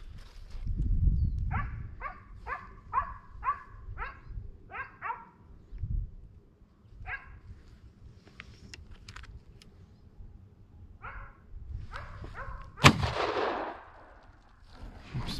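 Hunting hounds yelping in a quick series of short calls, with a few more later. Near the end a single loud gunshot cracks and echoes away.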